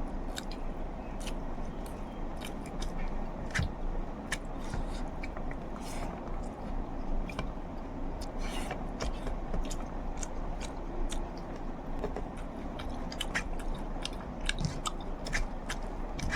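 A person eating an egg curry meal close to the microphone, chewing with many irregular sharp wet mouth clicks and smacks over a steady low hum.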